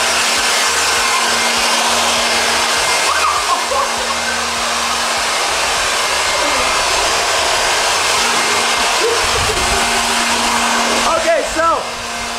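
Corded electric leaf blower running steadily, a loud rush of air over a steady motor hum, blasting sticky slime across a car's bonnet. It drops away near the end.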